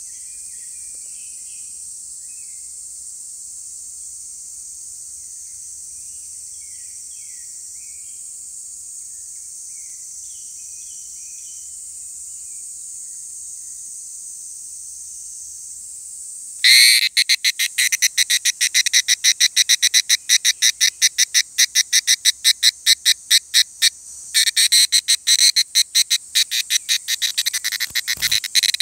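A steady, high-pitched drone from a distant insect chorus, with faint chirps over it. About two-thirds of the way in, a loud, rapidly pulsing call breaks in close to the microphone: the higurashi (evening cicada, Tanna japonensis) calling as it is grabbed and held in the hand. The pulsing pauses briefly near the end.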